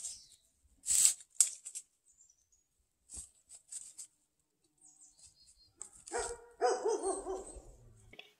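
Small black dog digging at loose dry dirt, with short scratching scrapes, then barking for about two seconds near the end.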